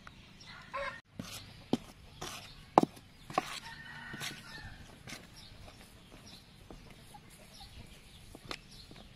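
A metal spoon clinking and scraping against a stainless steel bowl while beaten egg is stirred into crispy flour, with a sharp clink about three seconds in. Chickens cluck in the background.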